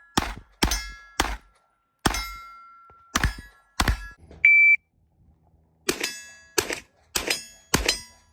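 Gunshots at steel targets, each followed by the ring of struck steel: six shots, then a short electronic shot-timer beep about halfway, and four more shots starting about a second and a half after it.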